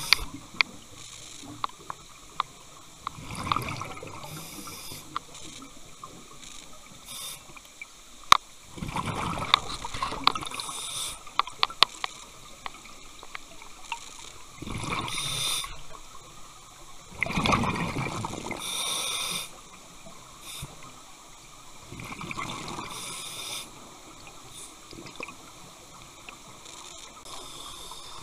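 Scuba diver breathing through a regulator underwater: a burst of rushing exhaled bubbles every few seconds, quieter stretches between, and scattered sharp clicks.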